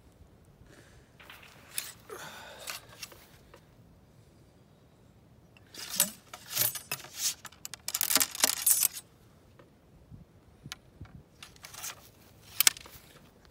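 Muzzle-loading an 1853 Enfield rifle-musket: scraping and rustling at the muzzle first, then the steel ramrod scraping and ringing in the barrel as the bullet is rammed down. Sharp metal clicks and taps follow near the end as the rod is drawn out and handled.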